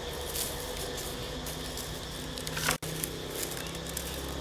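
Dry coconut-leaf midribs rustling and clicking lightly as a bundle of them is handled and bound with string into a stick broom, a few soft ticks over a steady low hum.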